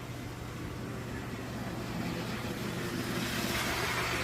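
HO-scale GG-1 model electric locomotives running on the layout track: a steady hum with a rolling hiss that grows louder about three seconds in as one comes close.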